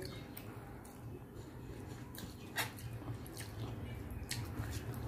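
Wet, squishy clicks of fingers mashing and mixing rice with lentil dal on a plate, several scattered clicks with one sharper one a little past halfway, over a steady low hum.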